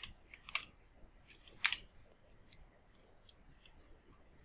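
Faint, irregular clicks of a computer mouse and keyboard, about ten in all, the loudest about one and a half seconds in.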